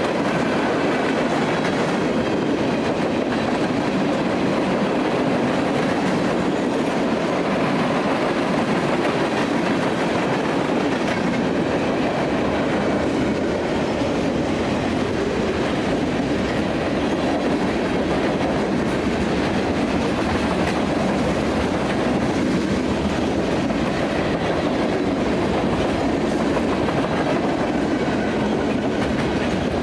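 Freight train of tank cars and boxcars rolling past, a steady rumble and clatter of steel wheels on rail.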